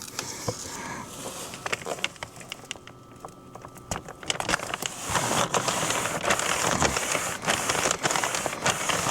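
Rustling, crinkling and light knocks of a food delivery bag and its dividers being handled and fitted into place. The sound grows louder and denser from about halfway through.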